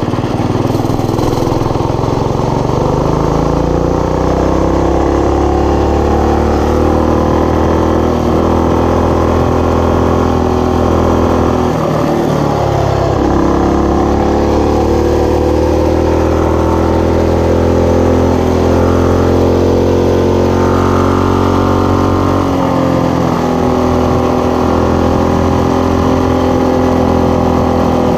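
Coleman BT200X mini bike's 196cc single-cylinder engine running under load while riding, its pitch climbing as the bike accelerates over the first few seconds. The throttle eases off briefly about halfway through and again about three-quarters through, and each time the engine pulls back up to a steady run.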